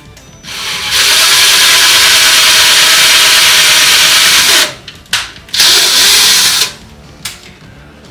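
Power drill with a 3 mm bit boring pilot holes for a drawer handle: one long run of about four seconds, two brief blips, then a second run of about a second.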